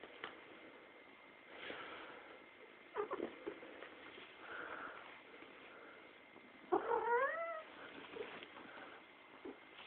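A pet cat calling: a short call about three seconds in, then a louder, longer call about seven seconds in that rises in pitch and wavers.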